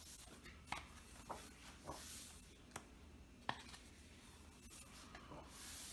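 Paper pages of a large, heavy hardcover book being turned and smoothed flat by hand: faint rustling with a few soft ticks.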